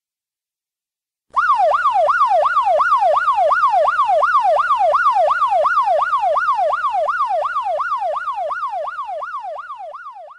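Electronic siren alarm sound effect: a loud tone wailing rapidly up and down, about three sweeps a second, starting about a second in and fading away near the end.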